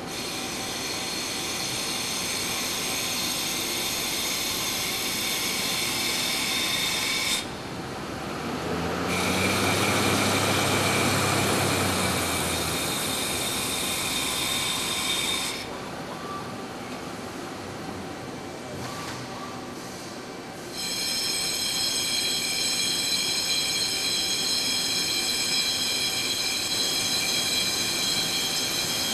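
Muratec Murata MW400 CNC lathe cutting a large metal disc: the spindle and tool give a steady high-pitched whine made of several tones over the noise of the cut. The whine drops out twice, about a quarter and about halfway through, and between the gaps a louder, lower rushing noise swells. The last part is a finish cut across the face.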